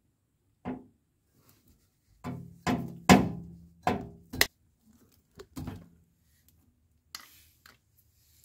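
Wire stripper clacking as it is squeezed shut on wire ends: a series of about eight or nine sharp hollow clacks with a short ring, spaced unevenly, the loudest a few seconds in, followed by a brief hiss near the end.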